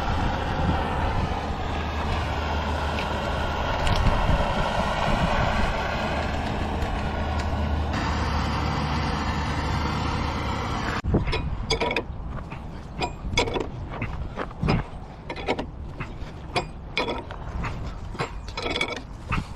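Heavy machinery running steadily with metal creaking, then giving way abruptly about eleven seconds in to scattered metallic clicks and knocks.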